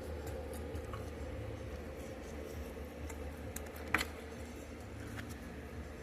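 A person chewing a bite of sauce-dipped sweet and sour chicken: soft, wet mouth sounds with faint small clicks, and one sharper click about four seconds in, over a steady low hum.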